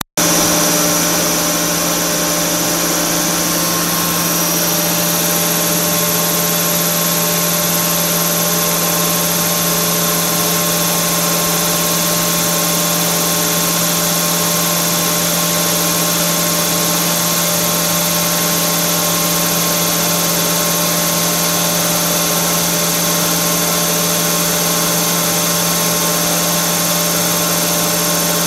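Knuth RSM 1000 cylindrical grinder internal-grinding a bore, the workpiece turning in the chuck while the grinding spindle runs inside it. A loud, steady machine hum with several held tones under a high hiss.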